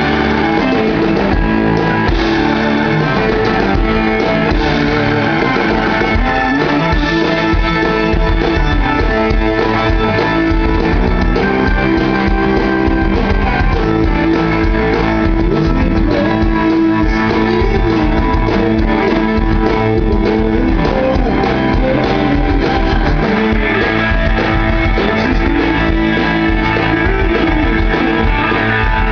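Live blues-rock band playing loud and steady: an electric guitar plays with bent notes over bass and drums.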